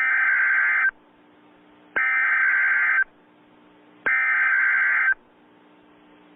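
Emergency Alert System SAME header: three bursts of buzzing digital data tones, each about a second long and a second apart, over a faint steady hum. These bursts open a new emergency alert broadcast.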